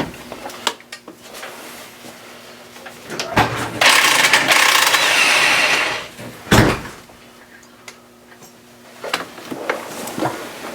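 Impact wrench hammering on a 16 mm motor-mount nut for about two seconds, followed by a single loud clunk; the stud turns out of the mount along with the nut. Small knocks and clicks of tool handling come before and after.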